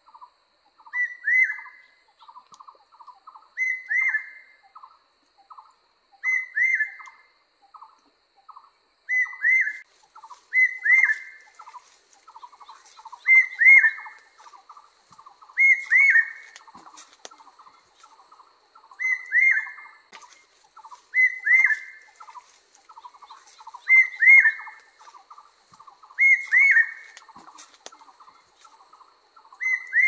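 Two kinds of bird calls at once: a rapid, nearly unbroken run of short low notes, and a louder, short hooked call repeated every two to three seconds.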